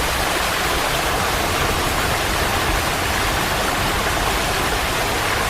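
Fast-flowing floodwater rushing, a steady dense noise that does not change.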